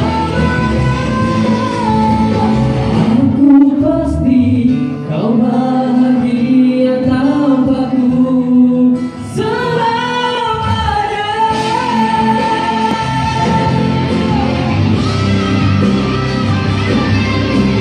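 Two male singers performing a Malay pop ballad live through a PA, with handheld microphones over backing music. Near the end the singing stops and the instrumental carries on.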